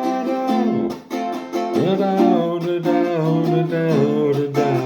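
Music: a solo acoustic string instrument strummed in a steady rhythm, with a voice holding and sliding between notes.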